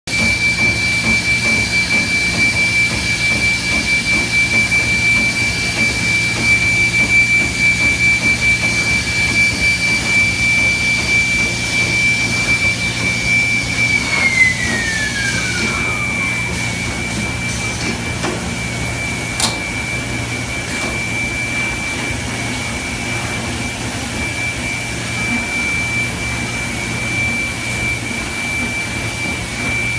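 Small high-speed spindle motor of a PCB drilling machine running with a steady high-pitched whine over a low hum. About halfway through, part of the whine slides down in pitch and the sound settles quieter and steadier, with a single click a few seconds later.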